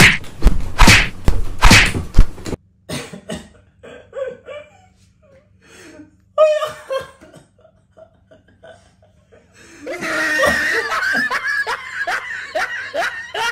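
A beating: a burst of loud slaps and thumps in the first two seconds or so, then scattered short vocal sounds. From about ten seconds in, a continuous run of vocal sounds whose pitch falls over and over.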